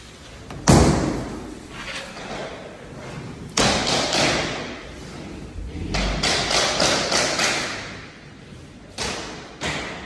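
Several heavy thuds and knocks with a lingering ring-out: the loudest under a second in, another after about three and a half seconds, a quick run of knocks around six to seven seconds in, and two more near the end.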